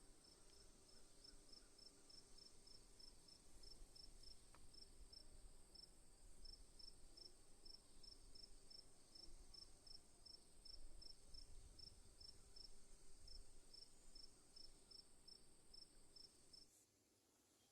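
Faint insect calls: a steady high-pitched trill alongside a regular chirp repeating about four times a second. Both stop abruptly near the end.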